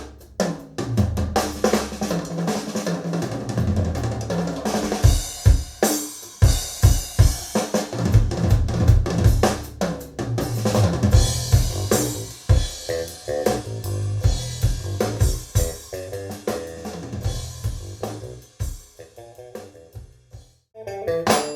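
Recorded music with a prominent drum kit (kick, snare and hi-hat) and bass, played through Audio Note AN-J-LX loudspeakers driven by an Audio Note Cobra push-pull valve amplifier and picked up in a small room. Near the end the music drops away and a new passage begins.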